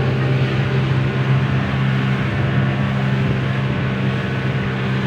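Boat engine running steadily at a constant speed, a low, even hum over rushing noise, heard from on board.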